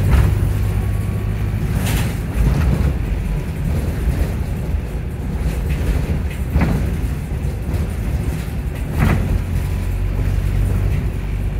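Volvo hybrid bus heard from inside the passenger saloon: a steady low hum and rumble from its drive, with a few sharp knocks about 2, 6.5 and 9 seconds in.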